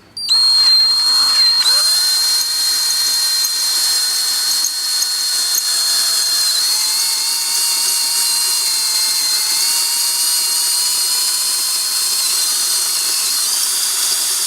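Electric drill with a 3/8-inch bit starting up just after the beginning and running steadily with a high whine, enlarging a small mounting hole to fit a turn signal.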